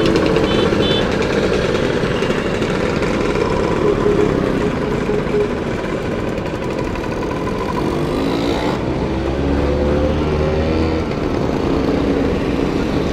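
A stream of motor scooters, many of them classic Vespas, riding past one after another on a wet road. Their engine notes rise and fall as each one goes by.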